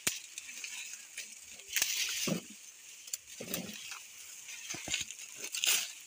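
Dry maize husks and leaves crackling and rustling as ears of corn are husked and picked by hand, with many short sharp crackles and a couple of duller swishes.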